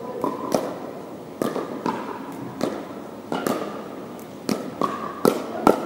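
Pickleball paddles striking a hollow plastic ball back and forth in a doubles rally: a string of sharp pops, roughly one every half second to second, each echoing briefly in a large hall.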